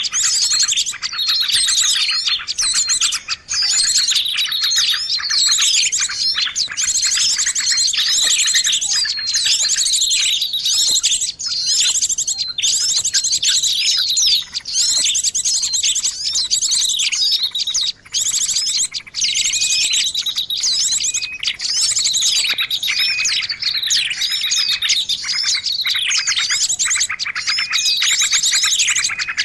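Bird-lure recording of many small songbirds chirping at once: a loud, dense, unbroken chorus of high overlapping chirps, whistles and rapid trills.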